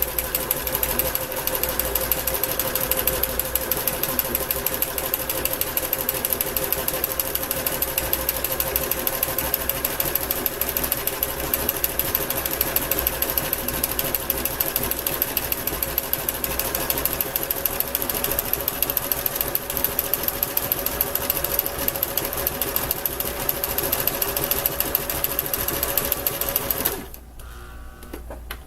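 Kenmore entry-level electric sewing machine running steadily, its needle stitching in a fast, even rhythm as it sews a straight stitch over zigzag edge stitching on cross stitch fabric. It stops suddenly near the end.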